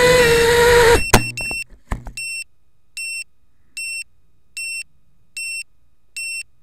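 Martian 2 quadcopter's motors whining, dipping slightly in pitch and cutting off about a second in, followed by a few sharp knocks as it comes down on the grass. Then a short, high electronic beep repeats about every 0.8 seconds, six times, from the landed drone.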